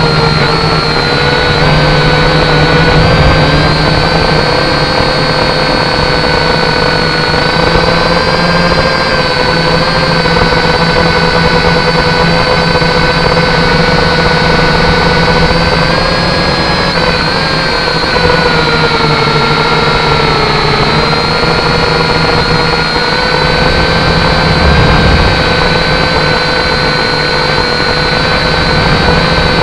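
Syma X5C-1 quadcopter's small brushed motors and propellers whining steadily, heard through its onboard camera's microphone. The pitch wavers slightly with throttle and dips briefly a little past the middle.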